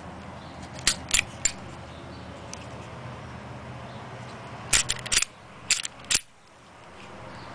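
Kahr CM9 pistol parts clicking: three sharp metallic clicks about a second in as the slide stop lever is pressed home, then a quick cluster of clicks and snaps near the end as the slide is worked back on the recoil spring.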